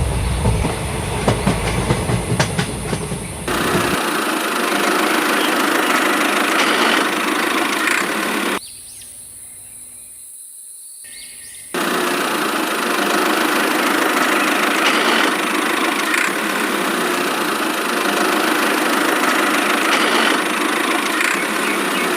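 A motor or engine running steadily, dropping away for about three seconds near the middle and then resuming.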